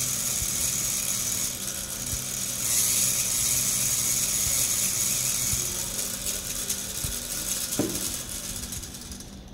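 Small brushed DC propulsion motor of a model race car spinning its rear wheel through small gears: a steady whir with a gear rattle, while a hand brakes the tyre. It slows from about six seconds in and cuts off just before the end, as the speed setpoint potentiometer is turned down.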